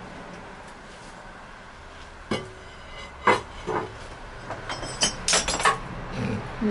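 Glaze-fired ceramic mugs clinking and knocking as they are lifted out of an electric kiln and set down: single knocks about two and three seconds in, then a quick run of clinks near the end.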